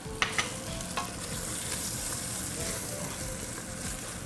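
Thick curry spice paste sizzling in coconut oil in a pan as it is stirred. A utensil clicks against the pan a few times in the first second.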